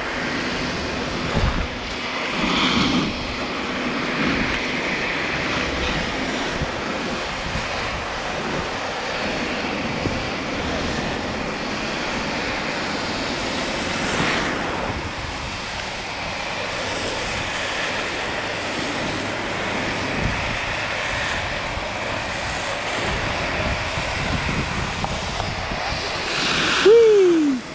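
Steady rush of wind on the microphone, with skis sliding and scraping over packed snow during a downhill run. Near the end comes a brief, louder sound that falls in pitch.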